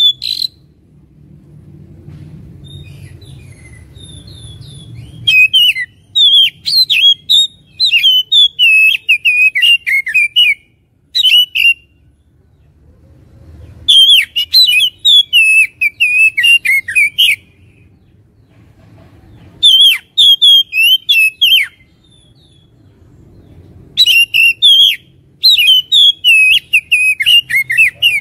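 Oriental magpie-robin (kacer) singing a heated, combative song: rapid runs of varied high whistles and chattering notes in about five bursts of a few seconds each, with short pauses between them.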